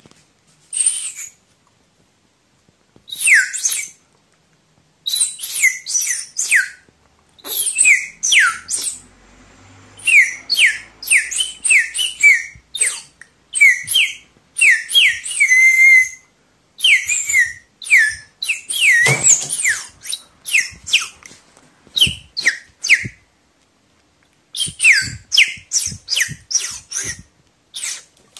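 A bendy drinking-straw whistle blown in runs of short, loud chirps, each one sliding quickly down in pitch, with brief pauses between the runs.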